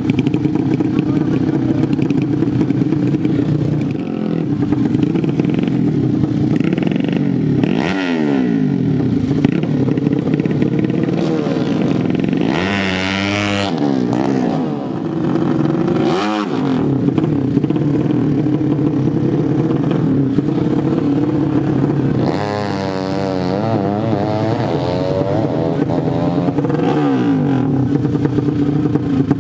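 Racing motorcycle engines of 150 cc horizontal-cylinder ('sleep engine') drag bikes running on open exhausts: a steady idle broken by repeated throttle blips. The blips come about five times, rising and falling in pitch, with a quick up-and-down burst of revs a little past the middle.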